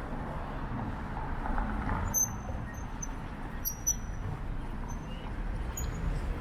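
City street background: steady traffic rumble mixed with low wind noise, with a few brief high-pitched squeaks a couple of seconds in.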